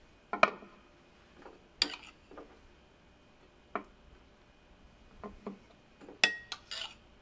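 Scattered clicks and clinks of a table knife and crockery: a plastic butter-dish lid lifted and set down, then the knife tapping and scraping on a ceramic plate while spreading cream cheese on toasted bread. Near the end comes a ringing clink of the knife against the ceramic bowl.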